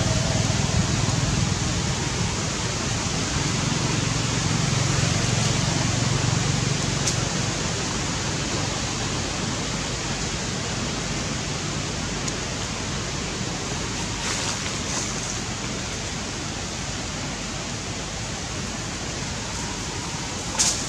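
Steady, even hiss of background noise with no clear rhythm or pitch, with a low hum under it for the first several seconds and a brief sharp sound near the end.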